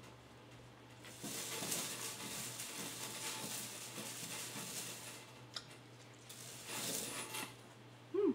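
Chewing and eating noises as a piece of chicken is eaten off the bone, in bursts with a sharp click midway. A short, loud pitched sound near the end.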